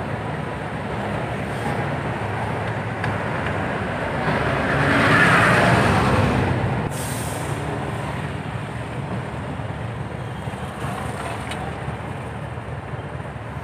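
Ride in a moving jeepney: the engine's steady low rumble and road noise. A rushing noise swells about four seconds in and fades by about seven seconds.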